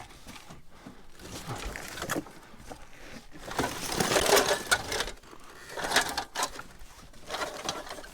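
Rummaging through a pile of junk: irregular rattling, knocking and scraping of items being shifted and pulled out, loudest about four seconds in.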